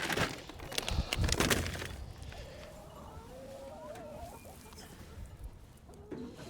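Domestic hens clucking, wavering calls a couple of seconds in, after a brief rustling clatter of handling noises at the start.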